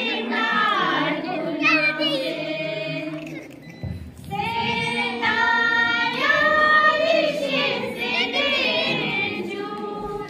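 A small group of voices, mostly women's, singing a song together, with a short break just before four seconds in.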